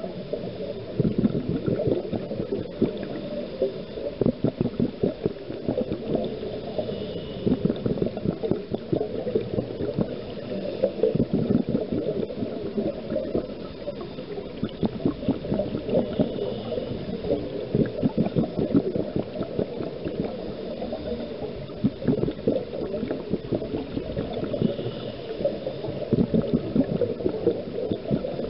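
Scuba regulator heard underwater: bursts of bubbling and gurgling from the diver's exhaled air, each lasting a few seconds, with quieter gaps between breaths.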